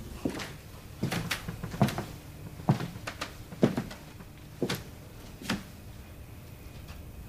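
A series of about seven sharp knocks and clicks, irregularly spaced roughly a second apart, over faint room tone.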